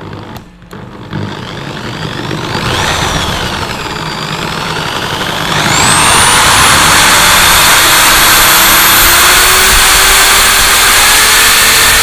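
Corded electric drill spinning the magnet rotor of a home-made generator. It speeds up unevenly over the first few seconds, then jumps to full speed about five and a half seconds in and runs with a loud, steady, high whine that keeps rising slightly in pitch.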